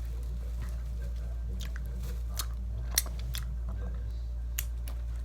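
A person chewing sour candy close to the microphone, with a few short sharp clicks, the loudest about three seconds in, over a steady low hum.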